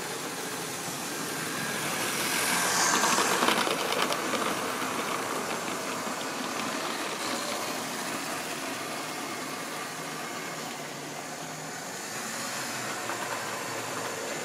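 Model railway train running on the track: the electric motor of a green model diesel locomotive whirring with wheel clicking. It grows louder as the train comes close about three seconds in, then settles to a steady running noise.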